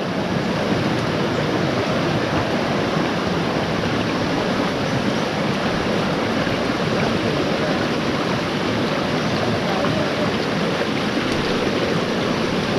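Rushing water of a forest stream: a steady, even rush.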